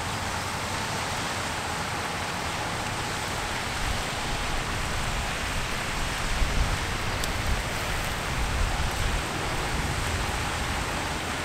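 Steady rushing hiss of pond spray fountains splashing, with a low rumble that swells and falls irregularly through the second half.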